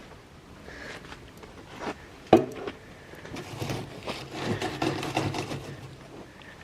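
Knocks and scraping on wooden boards, with one sharp knock about two seconds in.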